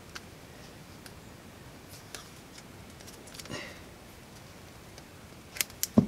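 Faint handling noises of a male XLR microphone plug being worked by hand: scattered small clicks, a brief soft rustle about three and a half seconds in, and two sharp clicks near the end.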